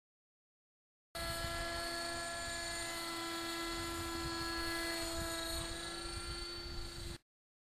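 Electric RC helicopter in flight: a steady whine of motor and rotor, made of several held tones over a low rumble. It starts abruptly about a second in and cuts off suddenly near the end.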